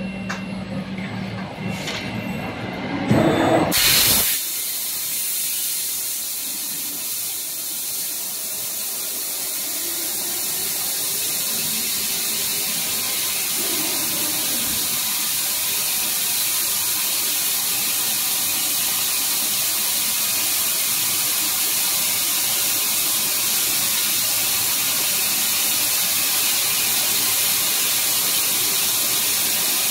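Fiber laser tube cutter cutting stainless steel tube: a short loud burst about four seconds in as the cut starts, then a steady hiss of assist gas blasting through the cutting nozzle and molten metal being blown out of the kerf.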